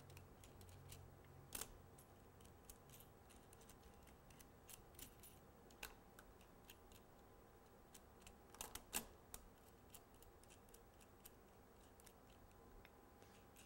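Faint, sparse small metallic clicks and ticks from brass nuts, lock washers and a threaded brass bolt being handled and turned by fingers. A few slightly louder clinks come about a second and a half in, near six seconds, and a pair around nine seconds.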